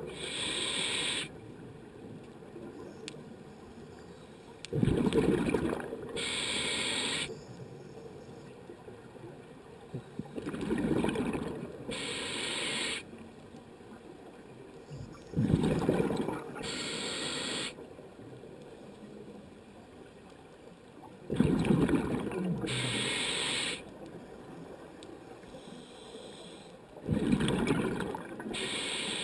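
Scuba diver breathing through a regulator underwater. Each time a loud rumble of exhaled bubbles is followed by a shorter, higher hiss of the inhale through the regulator. The cycle repeats about every five to six seconds, about five breaths in all.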